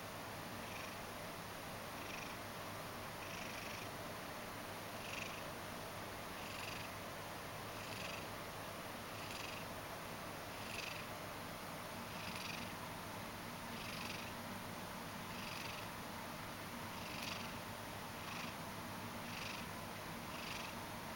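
Ragdoll cat purring steadily and softly, with a short rasping sound recurring about every second and a half.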